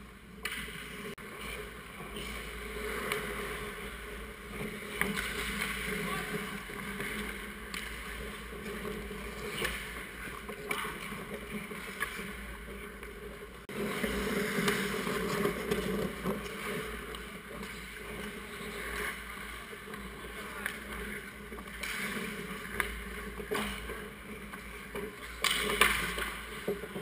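Hockey skates scraping and carving on ice close by, with scattered clacks of sticks and puck and a sharper hit near the end, under faint shouting of players.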